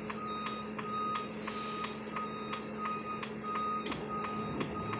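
Tow truck's warning beeper sounding a high single-pitched beep over and over, about twice a second, with faint ticking about three times a second alongside, heard from inside a car.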